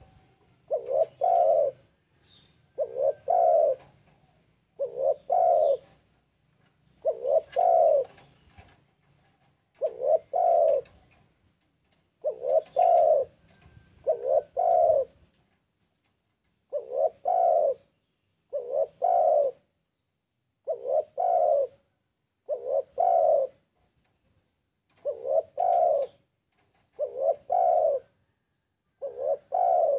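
Spotted dove (tekukur) cooing over and over: about fifteen short calls, each of two or three quick coos, roughly one every two seconds. It is the bird's repeated territorial call, the kind played to lure rival doves.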